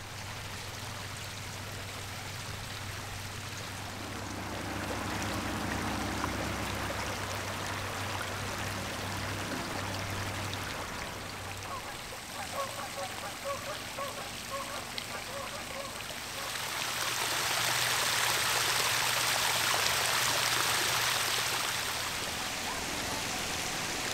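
Hot mineral spring water running and trickling over travertine terraces, a steady rush that swells louder for several seconds about two-thirds of the way through, then eases.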